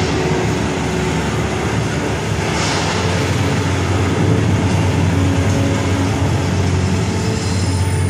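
Loud, steady, low rumbling noise from the soundtrack of the projection show, with a brief whoosh about two and a half seconds in; the low rumble grows heavier about three seconds in.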